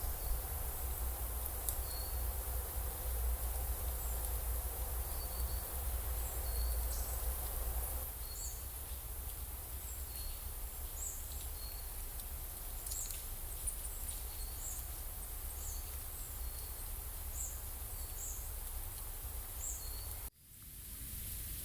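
Woodland ambience: a small bird repeating short, high chirps every second or so over a steady hiss and low rumble. The sound briefly drops out near the end.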